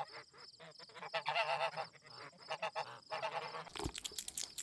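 Goose honking in a run of short, repeated calls, busiest from about one to three and a half seconds in, with a brief low thump near the end.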